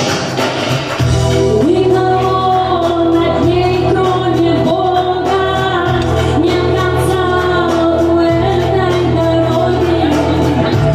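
A woman singing a Russian pop ballad over a karaoke backing track. The backing fills out with a steady bass about a second in, and the voice comes in shortly after in long held phrases.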